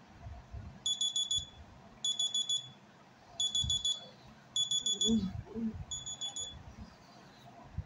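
Phone alarm beeping: five quick bursts of four or five high beeps each, about one burst every second and a bit.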